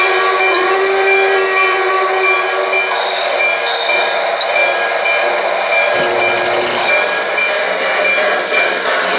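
The sound system of an O-scale model New York Central steam locomotive plays a steam whistle, held for about three and a half seconds, over a steady rhythmic run of train sounds. A short click comes about six seconds in.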